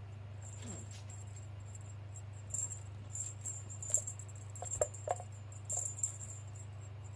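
A small bell on a kitten's toy jingling in several short shakes, with a couple of light knocks in the middle, over a steady low hum.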